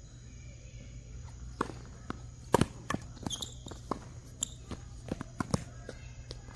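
A tennis rally on a hard court: a string of sharp knocks as the ball is struck by rackets and bounces on the court, along with players' footsteps. The loudest knock comes about two and a half seconds in, and there is a brief high squeak a little after it.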